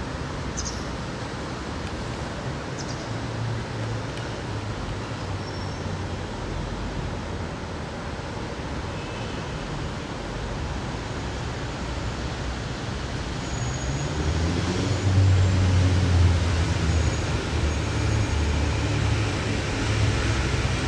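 Steady low rumble of road traffic, growing louder about fourteen seconds in as a vehicle with a low engine hum passes close.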